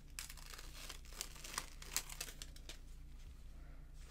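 Quiet crinkling and peeling of the paper release liner being pulled by hand off a sanitary pad's adhesive wings: a scatter of small crackles, thickest in the first two seconds and thinning out after.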